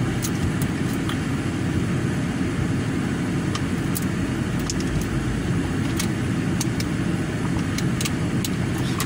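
Steady low rumble of a car running, heard from inside its cabin, with a few light clicks over it.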